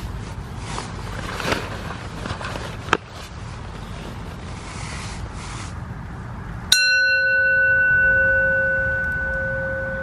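Hammered metal singing bowl struck once about two-thirds of the way in, ringing on with a steady low tone and higher overtones, the low tone wavering slowly as it fades. Before the strike, rustling and light crackles with one sharp click about three seconds in.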